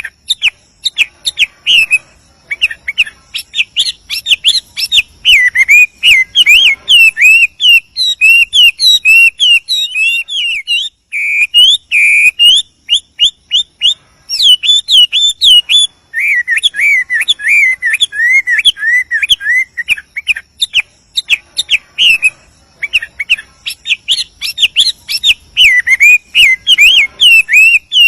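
Chinese hwamei singing a long, varied run of whistled phrases: quick notes sliding up and down, broken by a few short pauses.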